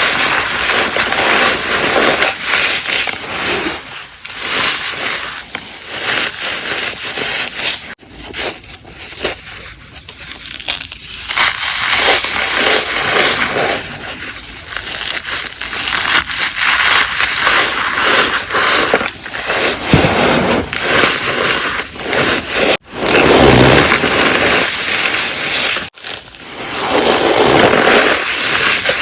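Gym chalk being crushed and squeezed, a dense crackling crunch that goes on in several clips cut together, broken by sudden short gaps about 8, 23 and 26 seconds in.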